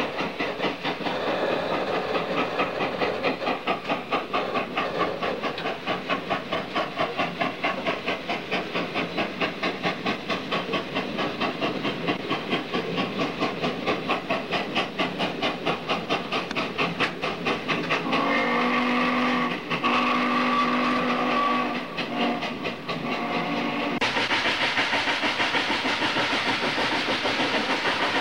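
Norfolk and Western steam locomotive working, its exhaust beating in a fast, even rhythm with steady hiss. About two-thirds of the way through, its steam whistle sounds in a few blasts of several notes at once.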